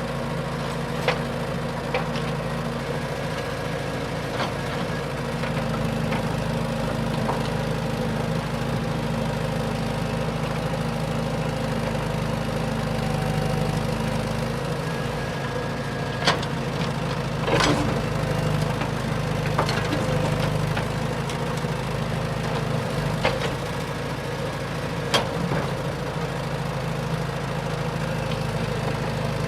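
A motor engine running steadily, with scattered sharp clicks and knocks.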